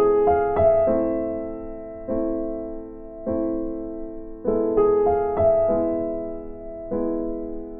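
Background music of slow, soft piano chords, a new chord struck about every second and left to fade, with a few short runs of higher melody notes on top.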